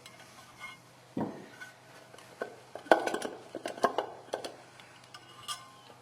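Small metal parts and a screwdriver clinking and knocking against a motorcycle stator and its engine cover while they are fitted by hand. There is a dull knock about a second in, then a cluster of sharp clinks a few seconds in and one more near the end.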